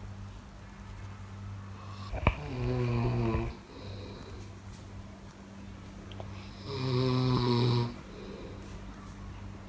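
A person snoring: two drawn-out, pitched snores about four seconds apart over a steady low hum, with a brief sharp click just before the first.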